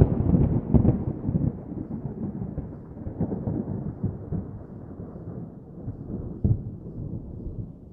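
Deep, thunder-like rumbling with several booms in the first second or so and another about six and a half seconds in, dying away steadily: an added sound effect under the end card.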